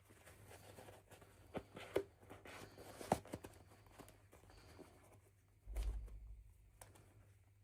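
Faint rustling with several small sharp clicks and taps, typical of hands handling plastic toy packaging during an unboxing, and a soft low thud a little before the end.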